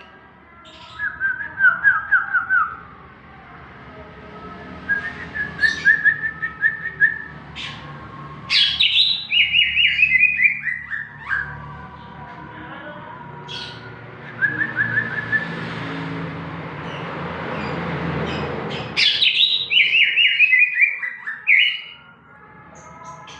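Cucak ijo (green leafbird) singing steadily: a varied run of sharp chirps and fast, falling trilled phrases repeated in bursts, with a hiss swelling in the background around the middle.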